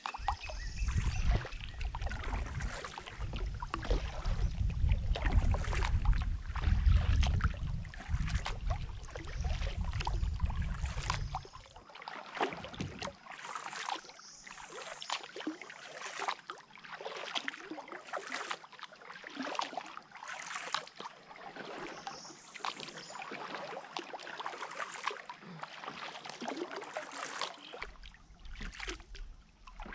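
Kayak paddle strokes in calm river water: the blades dipping, splashing and dripping at uneven intervals. A low rumble runs under the strokes for the first twelve seconds or so, then drops away.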